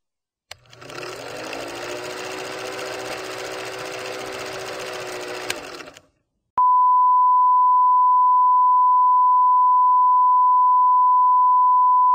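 Film projector running with a steady rattling whir for about five seconds, then cutting off. After a brief gap a loud, steady 1 kHz line-up test tone of the kind that goes with TV colour bars comes on and holds.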